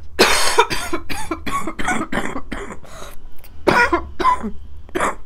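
A woman coughing in a fit: a quick run of about a dozen harsh coughs, a short pause about three seconds in, then a few more.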